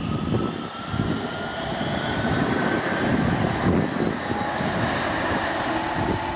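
Kassel RegioTram light-rail unit 452 709 running past close by: an electric traction whine that rises slightly in pitch and then drops lower near the end as the tram moves away, over rail and wheel rumble that is loudest about three to four seconds in. Strong wind buffets the microphone throughout.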